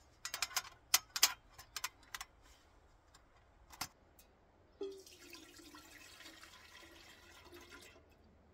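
Sharp metal clinks as a folding steel pot support is set onto a stainless folding camp stove. Then water pours from a bottle into an enamel percolator for about three seconds, starting about five seconds in.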